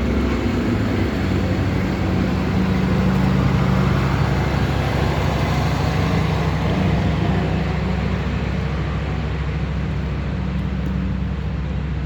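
A motor engine running steadily, a constant low drone.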